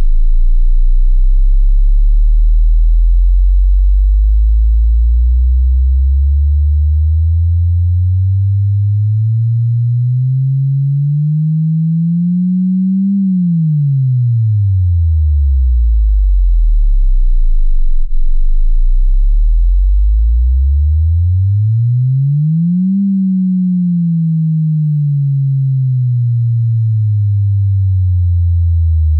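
Bass sine-wave sweep test tone: a single pure low tone glides up from about 40 Hz to about 200 Hz and back down, twice. It is a bass scan played loud to make poorly built headphone drivers rattle or buzz.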